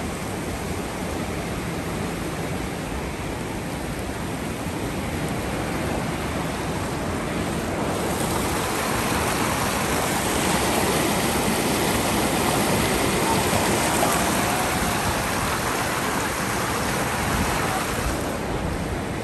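Swollen, fast-flowing river in flood, rushing and churning in whitewater past a footbridge: a steady roar of water that grows louder about eight seconds in and eases again near the end.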